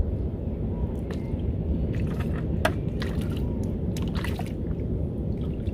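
Small watery splashes and drips, with a few sharp clicks from about two seconds in, over a steady low rumble.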